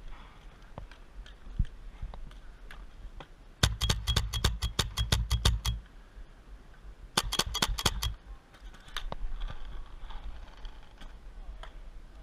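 Paintball markers firing: a rapid string of about a dozen shots, some six a second, starting nearly four seconds in, then a shorter string of about six shots a little after seven seconds, with scattered single shots between.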